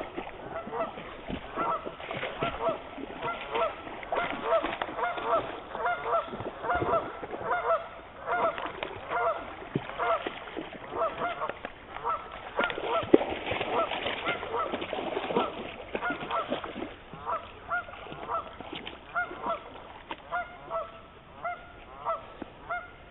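Geese honking over and over, several short calls a second without a break.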